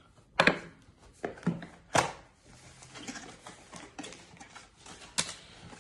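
Cardboard product packaging handled during unboxing: rustling and scraping, with three sharp knocks or clacks standing out over the rest.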